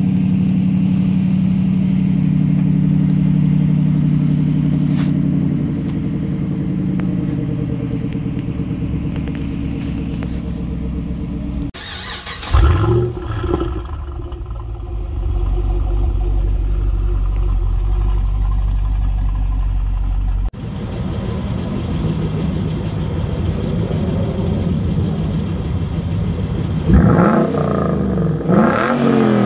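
Ford Mustang Boss 302's 5.0-litre V8 idling through its exhaust, in several spliced takes, with a short rev about twelve seconds in. In the last take it idles on the red TracKey track calibration and is blipped twice near the end.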